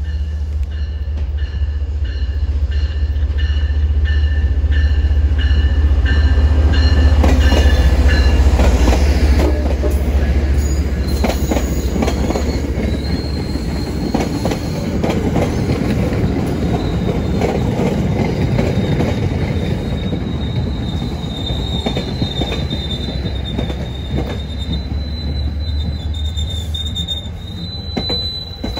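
MBTA commuter train passing, led by a MotivePower HSP46 diesel locomotive. The locomotive's engine drone builds and goes by in the first nine seconds under a rapidly repeating bell. Then the coaches and CTC-1 cab car clatter past, with a thin, steady wheel squeal through the second half.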